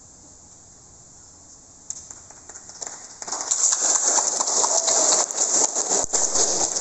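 A group of people clapping: a few scattered claps that swell within a second or so into loud, steady applause.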